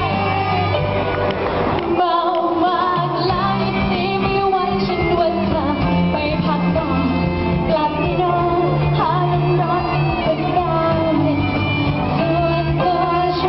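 Live pop-rock band with a girl singing lead over electric guitars, bass and keyboard, amplified through PA speakers in a large hall. The bass drops out briefly about two seconds in, then comes back.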